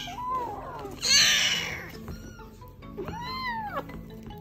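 Young kitten meowing: a few rising-and-falling calls, the longest about three seconds in. About a second in, a short loud burst of noise.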